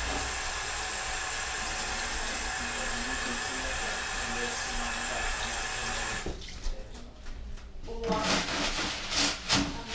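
Tap water running steadily into a stainless-steel sink while hands are washed. It cuts off abruptly about six seconds in, and a few short, irregular rustling and scraping noises follow.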